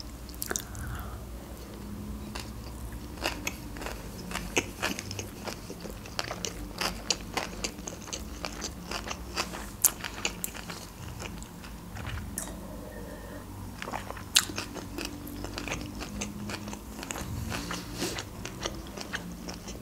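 Close-miked chewing of a sushi roll coated in red fish roe, with many small wet clicks and crackles throughout.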